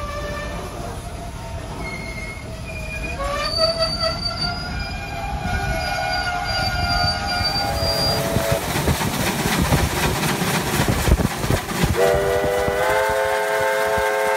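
Train running on the rails with rumble and clatter and wavering squeal-like tones, then, about twelve seconds in, steam locomotive 3801's steam whistle blown as a chord of several tones, held steady.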